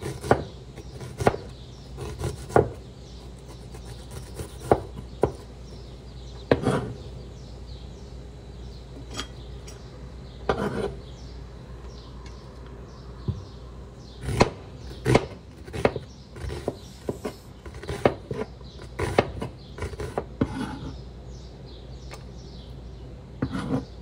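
Kitchen knife chopping a red onion on a wooden cutting board: sharp knocks of the blade on the board at irregular intervals, with a quiet stretch in the middle.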